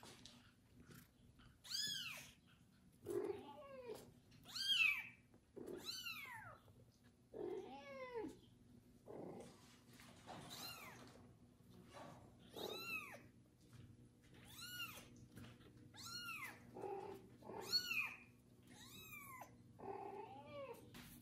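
Young kitten meowing loudly and over and over, about a dozen high cries that rise and fall in pitch, one every one to two seconds. It is a kitten calling for its mother's warmth rather than for food.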